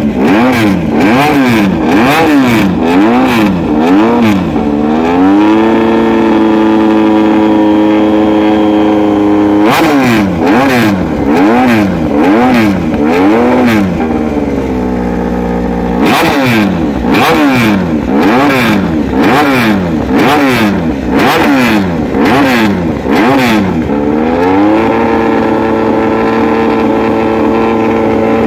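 Honda RC213V-S's V4 engine revved on a stand with quick throttle blips, about two a second, so the revs rise and fall. Twice the blipping breaks off and the revs climb and are held steady and high for several seconds, the second time near the end.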